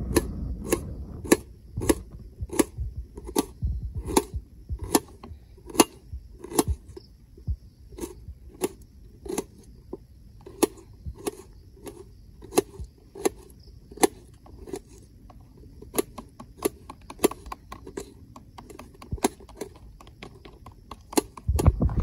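Kitchen knife chopping an onion on a steel plate: sharp metallic taps of the blade against the plate, about one or two a second, with a short rumble of handling near the end.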